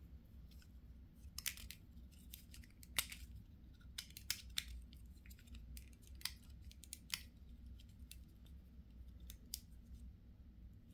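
Faint, scattered sharp clicks and ticks of small hard plastic parts being handled: a small digital thermometer and its packaging being opened and worked by hand. The clicks come at irregular intervals over a low steady hum.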